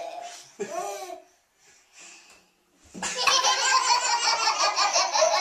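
Toddlers laughing together. The laughter fades about a second in, then after a short quiet gap starts again loudly about three seconds in, as fast, rhythmic peals.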